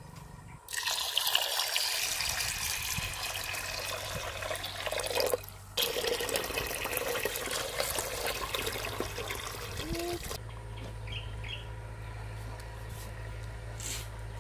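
Water pouring into a stainless steel pot of glutinous rice and sago pearls, with a brief break about five seconds in. The pouring stops about ten seconds in, leaving a steady low hum.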